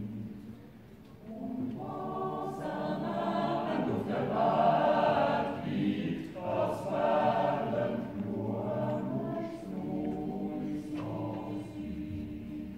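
Swiss yodel club, a mixed choir of men and women, singing a cappella in sustained chords. A short break about a second in, then the voices swell through the middle and ease off toward the end.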